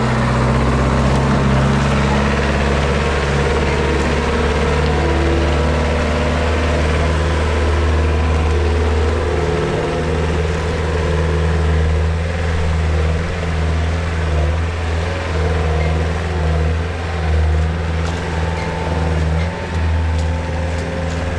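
Caterpillar skid-steer loader's diesel engine running steadily with a loud, even low hum while the machine drives off. The sound becomes a little uneven in the second half.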